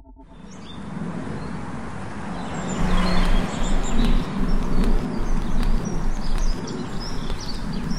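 Outdoor roadside ambience fading in: a low, steady traffic rumble with small birds chirping now and then, getting louder about three seconds in.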